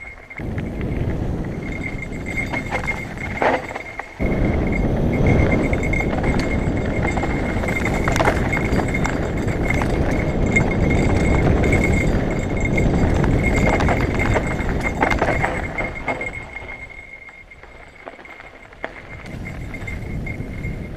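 Mountain bike riding down dry dirt singletrack: a loosely mounted bike bell rings steadily as the bike jolts. Under it is a rumble of wind and trail noise on the helmet camera, which jumps up about four seconds in and fades near the end.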